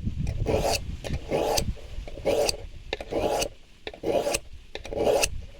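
A knife blade being sharpened, stroked across an abrasive surface in short rasping strokes at about one a second.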